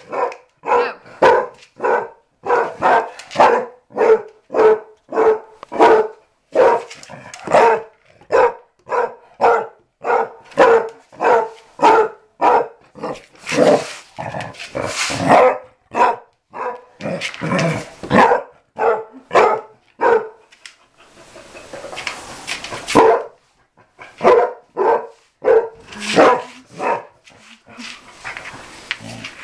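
Basset hound barking over and over, about two barks a second. The barks break off for a few seconds about two-thirds of the way through, where there is a rougher, hissing noise, then start again.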